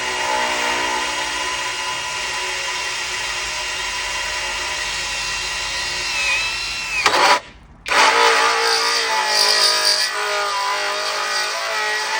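Flex 18 V cordless combi drill running a 40mm tungsten-carbide-tipped hole saw into 5mm steel plate: a steady motor whine with the teeth grinding on the steel. About seven seconds in, the pitch sags and the sound stops briefly, then the cut starts again rougher and more uneven.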